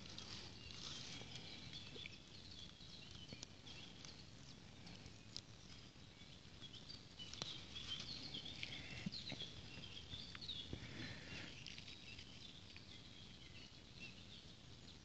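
Faint outdoor ambience: distant birds chirping, busiest around the middle, with small rustles and clicks of leaves and stems being handled.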